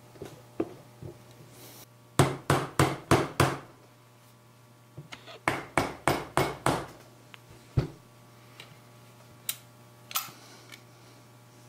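Green soft-faced mallet tapping a VF48 turbocharger's center section down into its cast-iron turbine housing: two quick runs of five or six blows, the first about two seconds in and the second a little past the middle, with lighter knocks and clinks of handling between.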